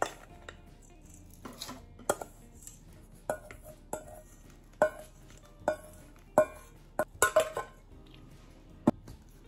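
Metal spoon clinking and scraping against a stainless steel mixing bowl as dry spice rub is knocked out of it into a glass shaker jar: a dozen or so short ringing metallic clinks at uneven intervals, with a quick run of them about seven seconds in.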